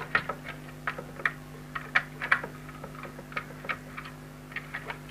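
Irregular light clicks and taps of a plastic extension-cord reel housing being handled as its loosened cover is lifted off.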